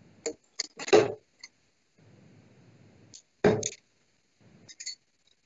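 Steel-tip darts hitting a Winmau Blade 5 bristle dartboard: a few short, sharp thuds spaced one to two seconds apart, the loudest about a second in and again about three and a half seconds in.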